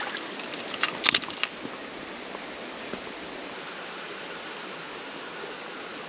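A few sharp splashes about a second in as a brook trout is released from a landing net dipped in the creek, then the steady rush of flowing creek water.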